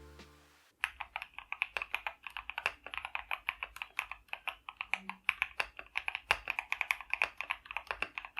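Typing on a mechanical keyboard fitted with Akko CS switches: a quick, continuous run of key presses that starts about a second in.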